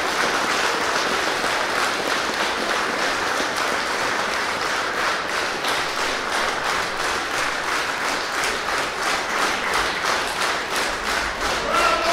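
Theatre audience applauding at the end of a performance; about halfway through, the clapping falls into a rhythmic clap in unison.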